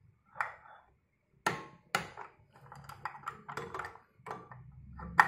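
Click-type torque wrench working the rear clutch nut of a scooter's CVT, set to about 49 N·m: a run of quick metallic ratchet clicks and knocks. It ends in one sharp, loud click near the end as the wrench breaks at its set torque.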